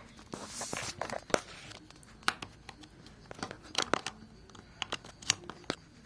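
Handling noise as a USB power cable is plugged into a Phonak TV Connector: a rustle near the start, then a series of sharp plastic clicks and taps.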